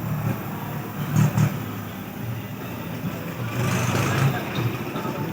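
A steady, wavering low machine hum, with two short sharp cracks a little over a second in.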